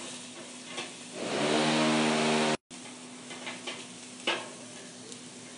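Meat skewers sizzling and crackling over a charcoal grill, with a steady low hum beneath. About a second in, a loud engine-like drone swells and holds for about a second and a half, then cuts off abruptly. A sharp pop comes a few seconds later.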